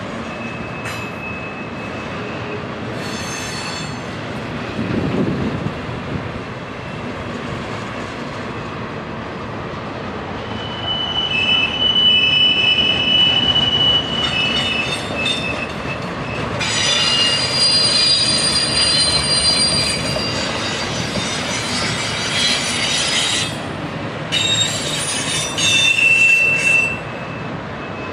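BNSF double-stack intermodal train's well cars rolling past with a steady rumble, their wheels squealing in several high-pitched spells, the longest in the middle and another near the end.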